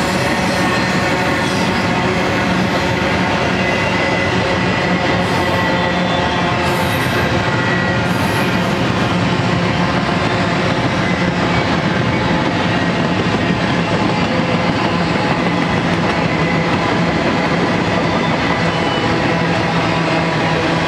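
Double-stack intermodal freight train rolling past: a steady rumble of wheels on rail with several steady ringing tones over it.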